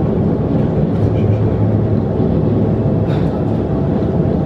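Train running, heard from inside the carriage: a steady rumble with a constant low hum.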